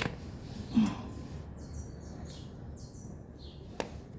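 Clicks and a dull knock of metal as the spring clip of a motorcycle chain master link is pressed and snapped into place: one sharp click at the start, a louder knock just under a second in, another click near the end. Birds chirp faintly in the background.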